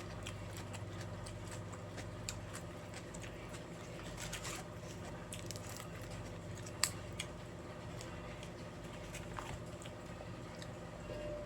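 A person chewing and eating stir-fried beef noodles, with many small wet mouth and utensil clicks and one sharper click about seven seconds in, over a steady low hum.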